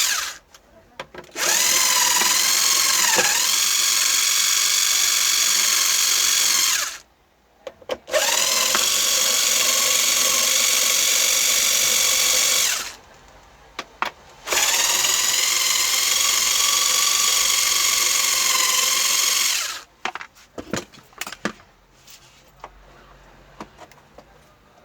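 Electric screwdriver or drill-driver motor whining in three long runs of several seconds each, dipping in pitch briefly in the first run as it takes load, while backing out the screws of a TV's rear cover. Near the end, a few light clicks and taps of small parts being handled.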